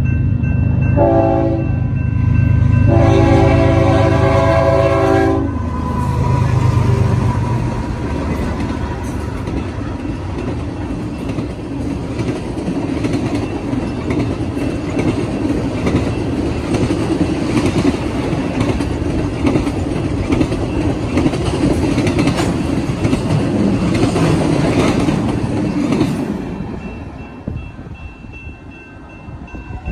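BNSF intermodal freight train passing close by. The lead diesel locomotive sounds its horn twice, a short blast then a longer one of about two and a half seconds, over the heavy rumble of the locomotives. Then comes a long run of steel wheels clicking and rumbling over the rail joints as the trailer and double-stack cars go by, fading near the end as the last cars pass.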